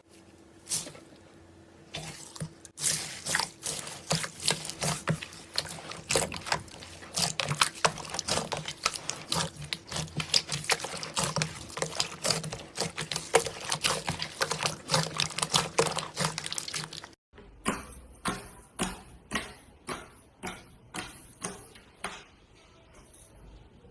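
Slime being squeezed and kneaded by hand: a fast, dense run of wet crackling pops and clicks. After a sudden cut about two-thirds of the way through come slower, separate squishes, about two a second, which tail off near the end.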